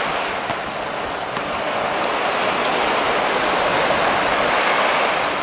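Small waves washing on the shore: a steady rushing hiss that swells a little toward the end.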